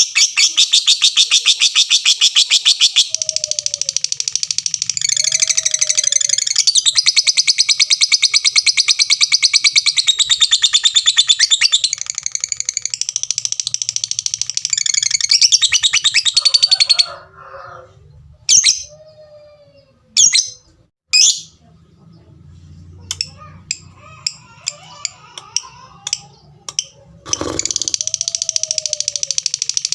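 A lovebird's long 'ngekek': a fast, high, unbroken chattering trill that runs for about seventeen seconds, then breaks into scattered short ticks and single sharp calls before the chatter starts again near the end.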